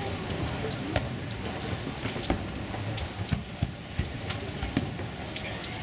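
Fireworks crackling, with a steady fizzing hiss broken by scattered sharp pops at irregular intervals.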